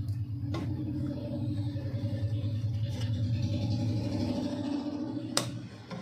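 Wire cutter clicking twice as it works at a microwave magnetron's filament terminal lead, about half a second in and again near the end, over a steady low rumbling hum that fades near the end.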